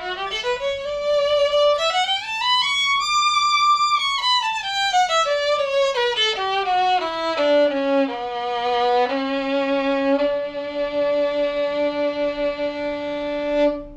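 Violin played solo with the bow: a scale climbing about two octaves and stepping back down, ending on a long held low note.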